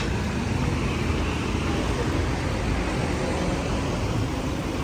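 Steady noise of road traffic, vehicles passing on a city street.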